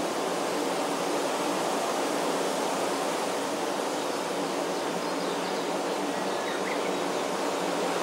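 Steady, even rushing noise of outdoor forest ambience, with a couple of faint high chirps past the middle.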